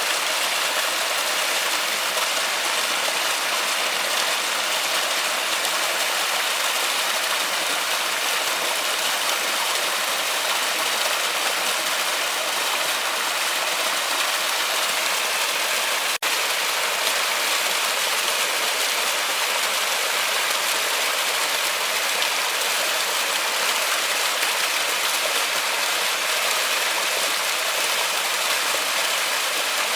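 Forest waterfall: water falling and rushing in a steady, even hiss-like roar, with a momentary dropout about sixteen seconds in.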